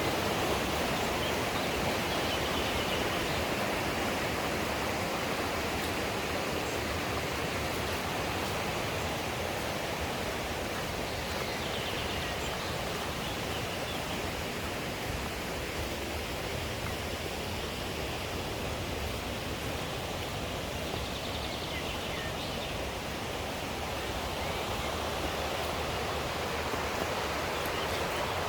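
Mountain stream rushing steadily over rocks, an even wash of water noise.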